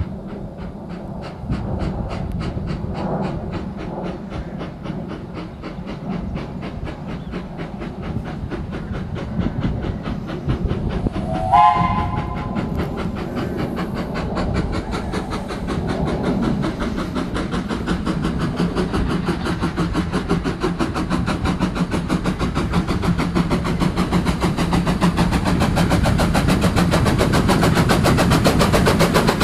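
LBSCR Stroudley Terrier No. 72 'Fenchurch', a small 0-6-0 steam tank engine, working with rapid, even exhaust beats that grow louder as it approaches and runs past. One short steam whistle blast sounds about twelve seconds in.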